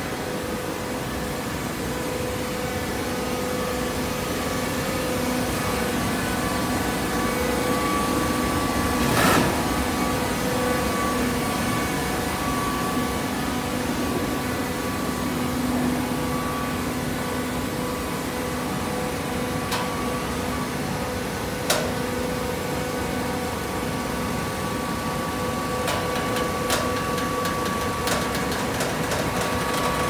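Automatic horizontal hydraulic baler for coconut fibre running: a steady machine hum with a few clear steady tones. Sharp clicks or knocks break in now and then, the loudest about nine seconds in and another a little after twenty seconds, with several small ones near the end.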